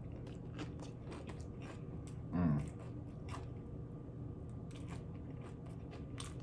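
Close-up crunching and chewing of loaded nachos' tortilla chips, many short crisp crunches, with a brief hummed "mm" about two and a half seconds in.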